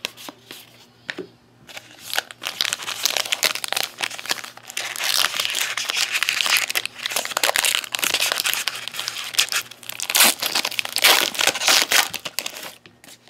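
Trading card pack wrapper crinkling and tearing as it is opened by hand, a dense run of crackles starting about two seconds in and stopping just before the end.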